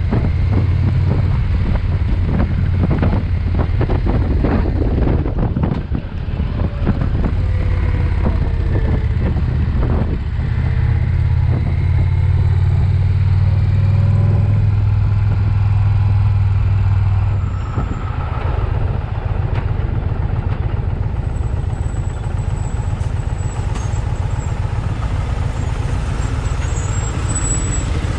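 Riding on a 2020 Indian Challenger, heard from the rider's seat: the big V-twin runs at a steady low drone with wind rushing past. About two-thirds of the way through the engine note drops and gets quieter, as at lower revs.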